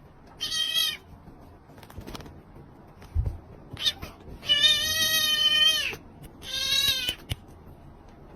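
A domestic cat meowing three times: a short meow near the start, a long drawn-out meow about four and a half seconds in, then another short meow right after it.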